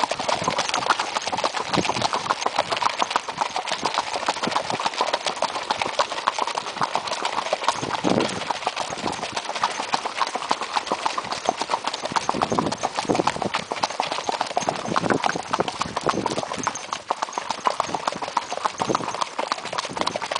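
Hooves of several gaited horses beating fast and steadily on a dirt-and-gravel track, the ridden horse's own hoofbeats closest, as the group moves along in a smooth gait.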